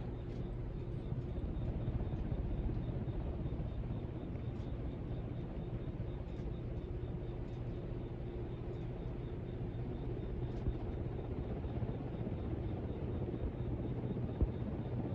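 Hampton Bay Tiffany Sonoma ceiling fan, with its 172x17mm spinner motor, running steadily: a low motor hum and air rumble, with a few faint ticks.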